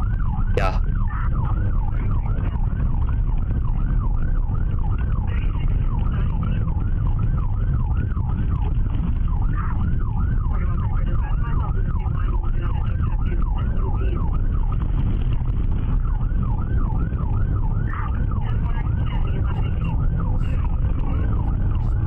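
Police car siren in yelp mode, its pitch sweeping rapidly up and down about three times a second without a break, over a heavy low rumble from the pursuing cruiser. A single sharp click about half a second in.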